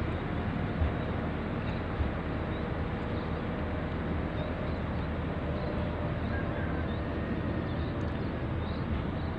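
Steady low rumble and hiss of a moving vehicle, heard from aboard, with faint high chirps now and then.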